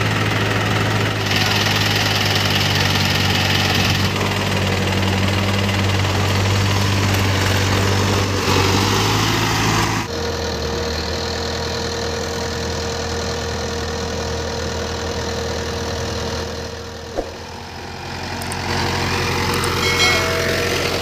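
Indo Farm 3065 DI tractor's diesel engine running steadily under load while the tractor is stuck in deep mud and its rear wheel spins. About halfway through, the engine note changes abruptly to a quieter, lower hum.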